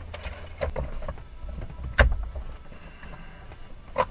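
Plastic A-pillar gauge pod being pushed and fitted into place against the car's interior trim: rustling and clicking plastic, with a sharp knock about halfway through and another near the end.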